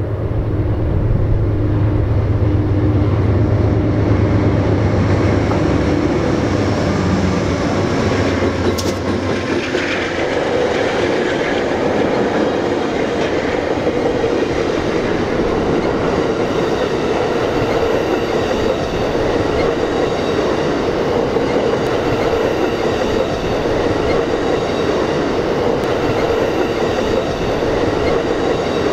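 Amtrak diesel-hauled passenger train passing. The locomotives' engines drone for roughly the first nine seconds, then give way to the steady rolling rumble and clatter of the passenger cars on the rails.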